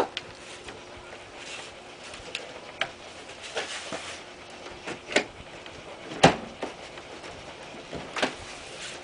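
Irregular sharp knocks and clicks as a vintage trailer door's wooden framing is pried and tapped loose from the door's metal skin and birch panel, the loudest knock a little past six seconds in.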